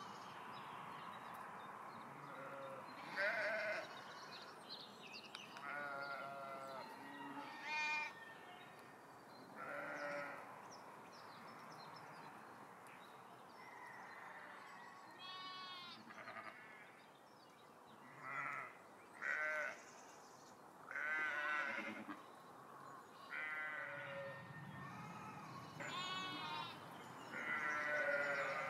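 Sheep in a flock bleating, about a dozen separate calls from different animals scattered throughout, several of them quavering.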